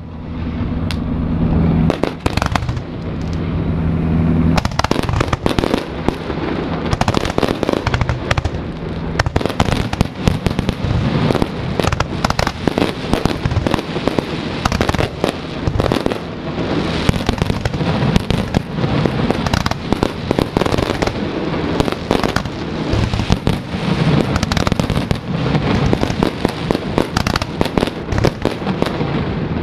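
Barge-launched fireworks going off in a dense, continuous barrage of bangs and crackling. A low steady hum runs beneath them for about the first four seconds.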